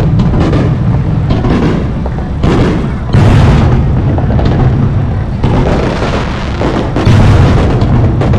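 Fireworks bursting in rapid succession: deep booms overlapping one another, with crackling between them. Fresh loud blasts come about two and a half, three and seven seconds in.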